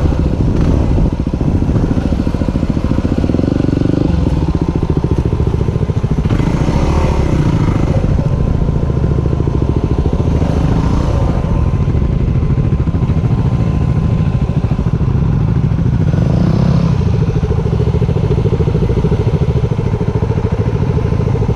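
Yamaha WR250R's single-cylinder four-stroke engine running at low speed on a dirt trail, the throttle opening and easing several times.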